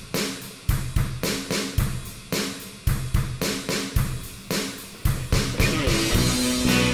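Background music: a drum-kit beat with kick, snare and hi-hat hits about twice a second. A guitar comes in near the end.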